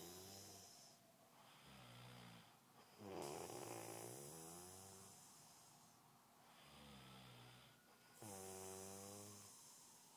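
A man snoring in his sleep in a slow, regular rhythm. Louder buzzing snores begin about three and eight seconds in, with softer snores between them.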